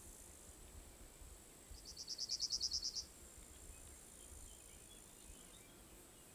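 Insects chirring in a faint, steady, high thin buzz. About two seconds in, a louder rapid series of about a dozen short high chirps lasts just over a second.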